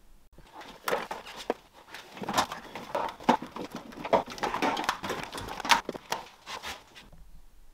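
Hands working in a car's engine bay: an irregular run of clicks, knocks and rustling as the wiring loom and its connectors are handled and pulled through. It goes quiet near the end.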